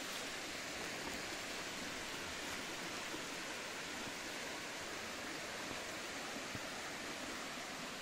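Steady rushing of water, an even hiss with no breaks.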